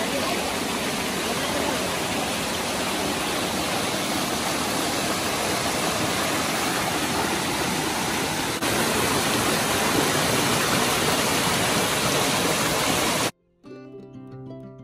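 Rushing water of a hot spring waterfall cascading into natural pools: a steady, dense hiss, a little louder from about two-thirds of the way in. Near the end it cuts off abruptly, leaving a moment of soft music.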